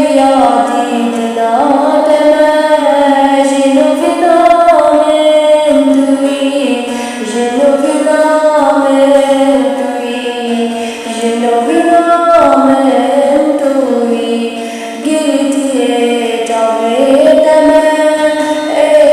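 A female voice singing a slow, ornamented melody, holding long notes that slide and bend between pitches, phrase after phrase with brief breaths between.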